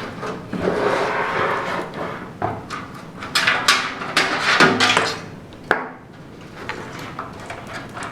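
Knocks, scrapes and clicks of a power supply unit being handled and set into a computer case, with a sharp click a little after halfway.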